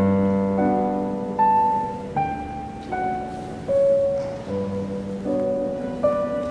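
Background music: a slow solo piano melody, each note struck and left to fade, a new one a little under every second over held low chords.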